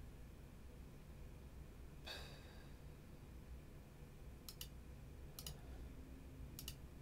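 Computer mouse clicking quietly: three sets of two quick clicks, press and release, in the second half, over faint room hum. A short exhale comes about two seconds in.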